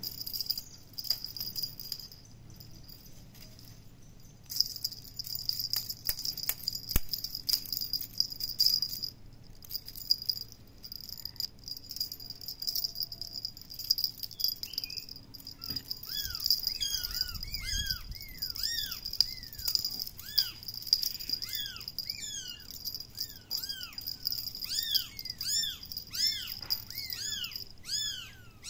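Kitten mewing in short, high, repeated calls, about two a second, starting about halfway in. Under it runs a steady high insect drone, with scattered light clicks and rattles.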